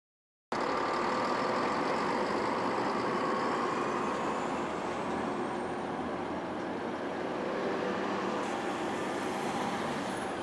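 A diesel railcar running at a station platform, cutting in suddenly about half a second in. It is a steady mechanical rumble with a faint high whine that slowly rises in pitch.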